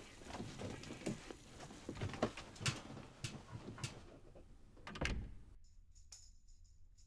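Faint clicks, knocks and rustling of someone moving about a small room, with a heavier low thump about five seconds in.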